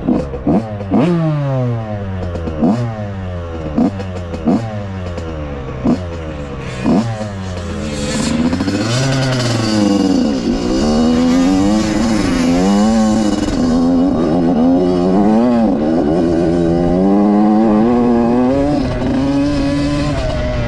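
Yamaha YZ85 two-stroke single-cylinder dirt bike engine: about seven quick throttle blips in the first seven seconds, each rev rising sharply and dying away, then from about eight seconds held at higher revs with the pitch rising and falling as the bike rides.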